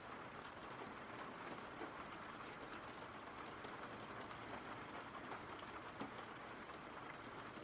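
Faint, steady rain falling.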